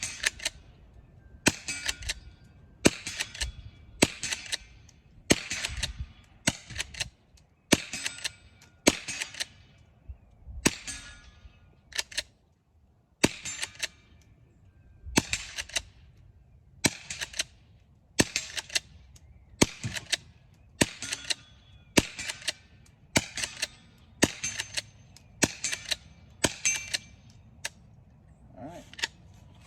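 Savage Model 29B pump-action .22 rifle firing .22 Short rounds in a steady string, about twenty shots roughly a second apart. Each sharp crack is followed by the clack of the pump being worked to chamber the next round: the action cycling the shorts without a hitch.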